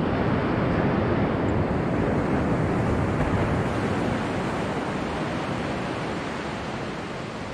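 Ocean surf breaking on a sandy beach, a steady wash of waves that slowly fades toward the end.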